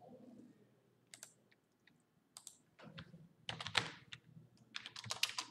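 Computer keyboard being typed on: scattered keystrokes in small clusters, a few keys at a time, with short pauses between.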